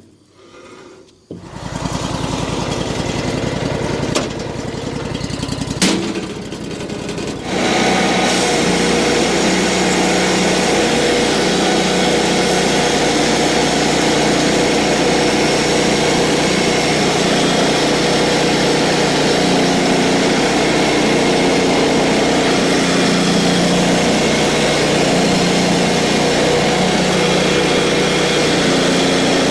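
Mechmaxx 36 sawmill's small gasoline engine starting about a second and a half in and running at low speed, then throttled up about seven and a half seconds in and running steadily at high speed.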